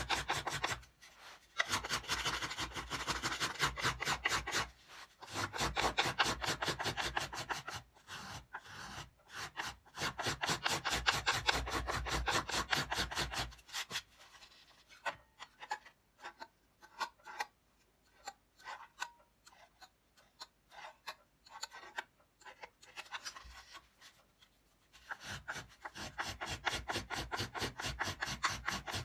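Small violin-maker's finger plane shaving the spruce top of an old violin in quick, short strokes, refining its coarsely carved arching. The strokes come densely at first, thin out and grow quieter about halfway through, and pick up again near the end.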